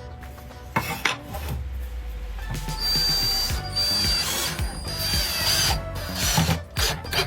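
Hand-tool work sounds: rasping, scraping and clicking, rather like a ratchet, starting about a second in.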